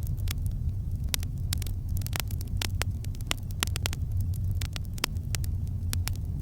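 Campfire crackling: irregular sharp pops and snaps of burning wood, several a second, over a steady low rumble of the fire.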